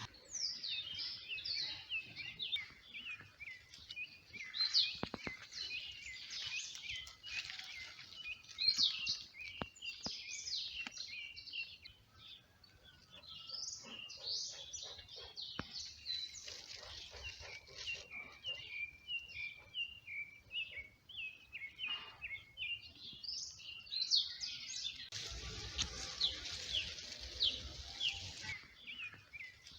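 Small birds chirping: many short, high, rapid chirps overlapping almost without pause. A stretch of rustling noise comes in near the end.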